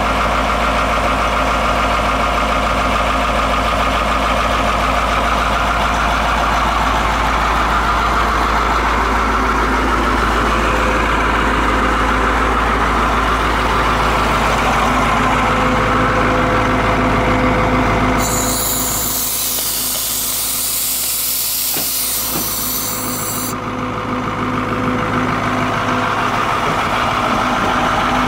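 Fire truck's Caterpillar diesel engine idling steadily, with a loud hiss of compressed air from the truck's air system lasting about five seconds, starting a little past the middle.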